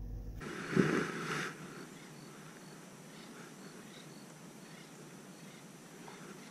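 Quiet outdoor lakeside ambience: a faint steady hiss with scattered small high chirps, after a short bump about a second in.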